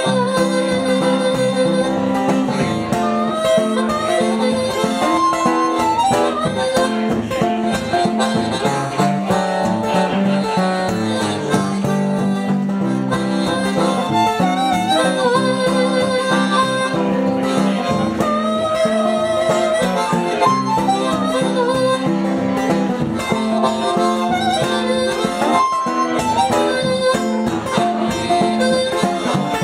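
Harmonica playing an instrumental blues lead with held, wavering notes over strummed acoustic guitar, in an acoustic country-blues style.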